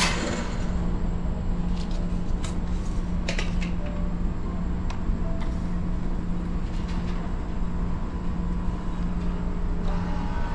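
Cup vending machine at work: a steady low hum with scattered clicks and knocks, and the machine's dispensing door opening for the filled paper cup to be taken out.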